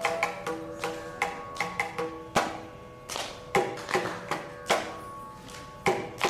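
Carnatic veena and mridangam playing together: plucked veena notes that ring and fade, over sharp mridangam strokes at an uneven pace. A held bamboo flute note stops right at the start.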